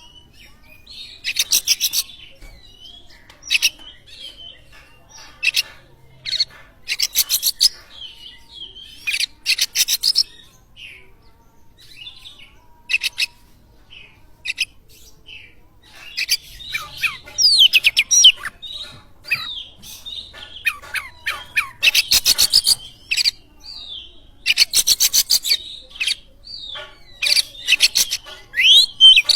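Oriental magpie-robin (kacer) singing, the loud varied song used as a lure to set other kacer singing. Phrases of fast rattling notes alternate with clear whistles that slide up and down.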